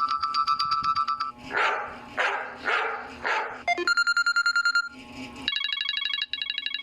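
Lenovo A318 phone ringtones played back one after another through the phone's small speaker. First a fast-pulsing electronic beep, then a ringtone of four dog barks about half a second apart, then a second fast-pulsing beep. A different repeating electronic tone starts near the end.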